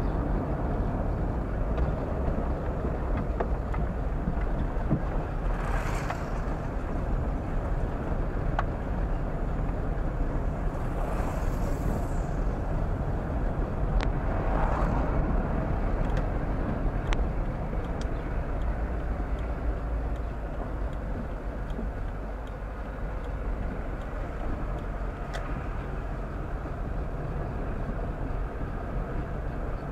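Car driving along: steady engine and road noise, heaviest in the low end, with a few sharp clicks and knocks scattered through it and two brief hissing swells early on.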